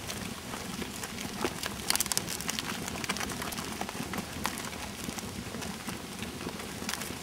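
A flock of Suffolk sheep shuffling and grazing close by: a dense, irregular patter of small clicks and rustles from hooves on the path and mouths cropping grass, with a few sharper clicks about two seconds in.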